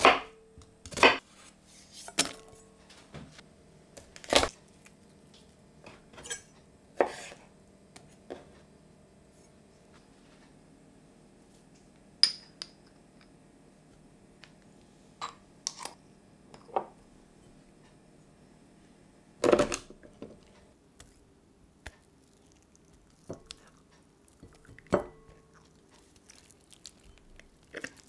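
Chopped onion, garlic cloves and spoonfuls of ground spice dropping into a glass mixing bowl, and a measuring spoon knocking against its rim. The result is a series of separate sharp clinks and knocks, a few with a short glassy ring, spaced by quiet stretches.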